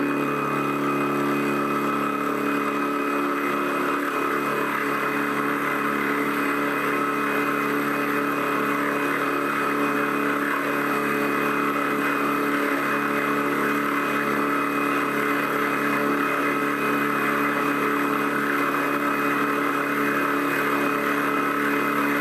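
Proxxon FF 250/BL micro milling machine running at a steady speed of about 2000 rpm, its end mill cutting a slot in a metal block held in a vise. The sound is a steady hum of several held tones over a rough cutting hiss.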